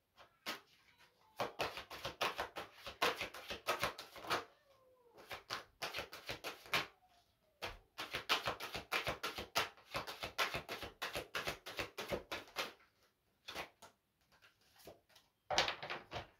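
Cards being shuffled or handled by hand: several bursts of rapid crisp clicking, each lasting a second or more, with short gaps between them.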